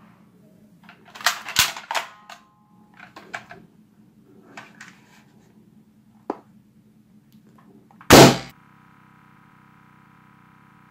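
Spring-powered toy AK-47 airsoft gun clicking and clacking as it is handled, cocked and fired, then a balloon pops loudly about eight seconds in. Music starts just after the pop.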